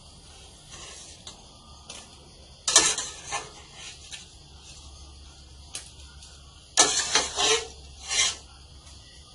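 A utensil scraping against a cooking pot in a few short rasping strokes as blanched shrimp are scooped out.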